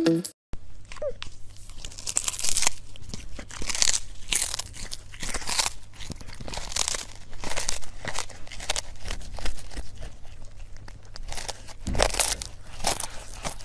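Irregular crunching and crinkling, roughly one or two noisy strokes a second, over a steady low hum.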